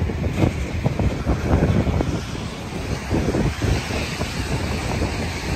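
Gusty wind buffeting the microphone in uneven low rumbling blasts.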